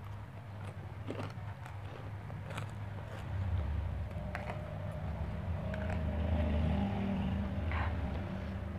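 Spoon and fork clinking and scraping on a glass plate in several short clicks, with chewing, over a steady low rumble that grows louder a few seconds in.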